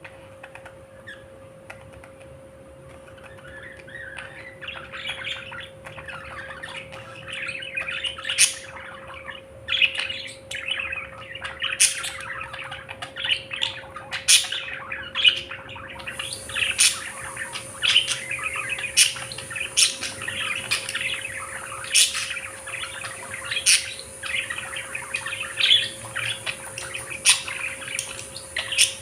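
A flock of budgerigars chattering and warbling; the chatter builds after a few seconds, and sharp chirps stand out every second or two.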